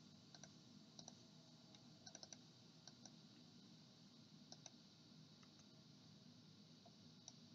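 Faint computer mouse clicks over near silence: single clicks scattered through, with a quick run of several about two seconds in.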